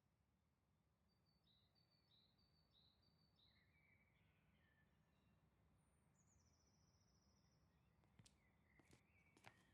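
Very faint ambience of birds chirping, a short note repeated about four times followed by a trill, over a low steady hum. Near the end a few sharp clicks start.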